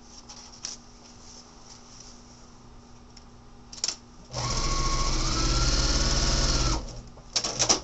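Electric sewing machine stitching a seam through the paper foundation and fabric of a paper-pieced quilt block, running steadily for about two and a half seconds from about halfway in, its whine rising a little soon after it starts. Quiet handling of paper and fabric before it, and a few clicks near the end.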